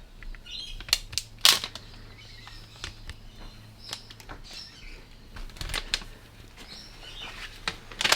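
Clear adhesive frame-protection film being applied by hand: its backing paper crinkles and peels away as the film is pressed and smoothed onto the frame, with scattered sharp ticks and a louder crackle about a second and a half in.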